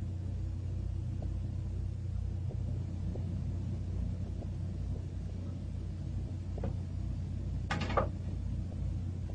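Steady low hum of room tone with a few faint ticks; about eight seconds in, a short clattering rustle as a violin is handled and put down into its case.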